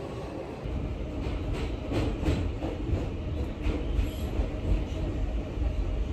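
New York City subway train: it rumbles into the station, then is heard from inside a moving car as a steady low rumble with a run of clanks and rattles from the wheels and car body in the middle.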